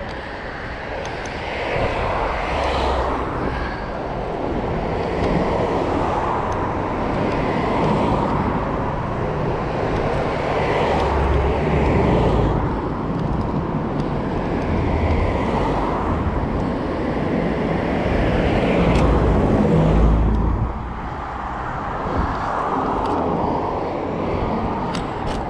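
Wind buffeting the microphone of a moving bicycle, mixed with road traffic noise. The rush swells and eases every few seconds, is loudest just before twenty seconds in, then drops suddenly.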